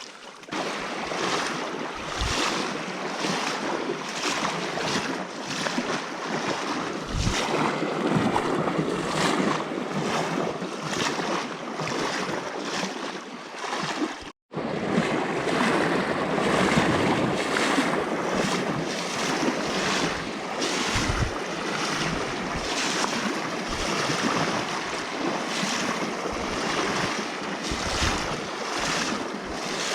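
Creek water rushing steadily, with a momentary break about halfway through.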